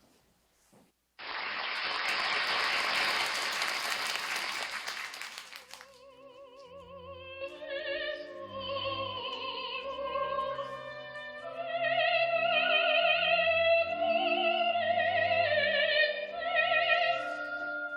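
A loud, even rush of noise for about five seconds that cuts off suddenly, followed by recorded operatic singing with wide vibrato over an orchestra, played as a sound cue.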